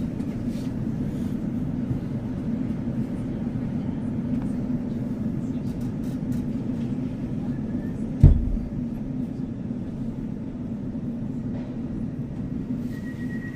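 Steady low rumble of a moving electric train, heard from inside the carriage, with one sharp loud thump about eight seconds in and a steady high tone starting near the end.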